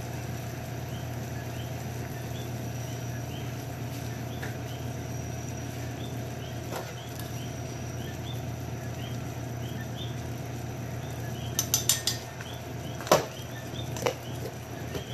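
Sugar-and-water syrup boiling in a stainless steel pot on the stove, a steady bubbling over a low hum. Near the end a plastic bowl is moved on a metal tray, giving a quick run of clicks and then a sharper knock.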